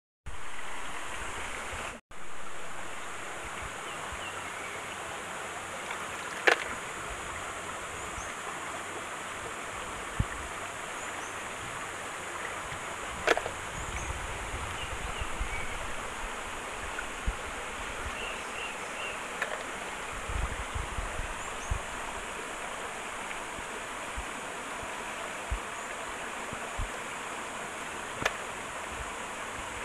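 Shallow rocky stream running steadily, with a few sharp clicks and some soft low thumps along the way.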